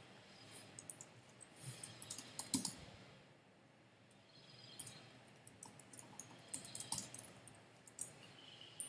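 Faint computer keyboard typing: a short run of keystrokes about two seconds in, then scattered keystrokes from about the middle on as a line of text is typed.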